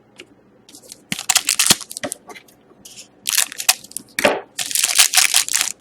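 Crinkling and rustling of plastic card packaging being handled, in irregular bursts that come and go.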